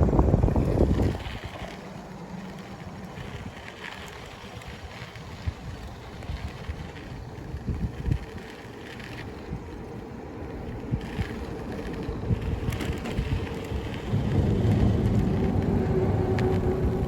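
Wind rumbling on the microphone of a moving bicycle, with a few light knocks from the bike rolling over the trail. The rumble is loud for about the first second, eases off, then swells again near the end.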